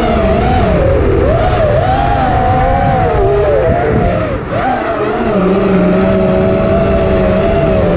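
Racing drone's electric motors and propellers whining, the pitch swinging up and down as the throttle changes, then settling to a steadier tone about halfway through.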